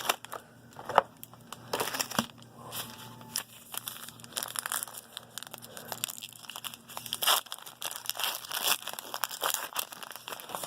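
Plastic wrapping on a box of trading-card packs being torn open and crinkled, with irregular crackling rustles throughout.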